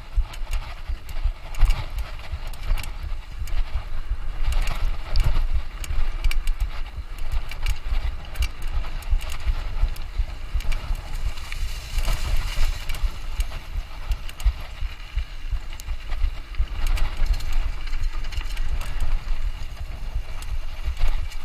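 Mountain bike ridden over a rough trail: a heavy, uneven low rumble with frequent sharp clicks and rattles from the bike.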